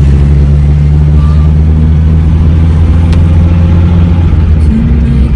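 A 1975 Datsun's engine running steadily and loudly, with a slight change in pitch near the end.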